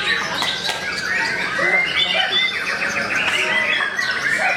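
Caged contest songbirds singing loudly, several at once, with overlapping whistles, chirps and a rapid trill in the middle.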